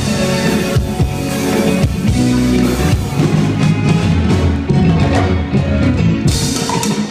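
Live cumbia band playing loudly, with bass guitar, drums and timbales. Sharper, brighter percussion hits come in near the end.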